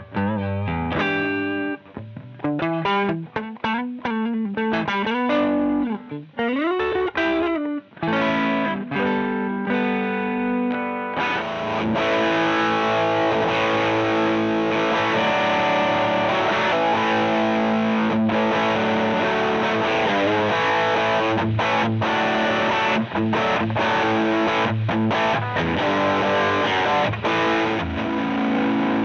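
Electric guitar played through a Joyo JF-22 Oxford Sound amp-sim distortion pedal set to a light crunch. It opens with single-note lead lines and string bends, then about eleven seconds in moves to denser, sustained distorted chords.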